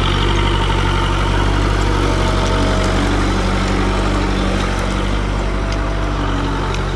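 Kubota MU4501 tractor's four-cylinder diesel engine running steadily while pulling a two-bottom mouldboard plough through soil.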